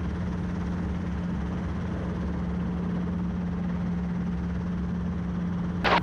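Robinson R22 helicopter's engine and two-blade main rotor running steadily, heard from inside the cabin as an even drone with a constant hum. A brief burst of noise comes right at the end.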